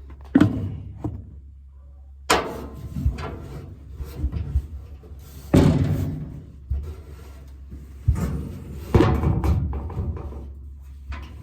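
A series of separate knocks and bangs, about five, each ringing out briefly, over a steady low hum, as he moves around the truck bed and toolbox to reach the other side's bolt.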